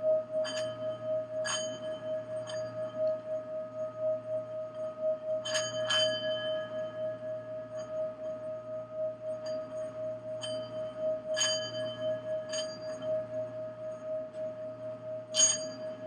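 Singing bowl sounding one steady, wavering tone, with about ten short, higher-pitched ringing strikes over it, the loudest near the end.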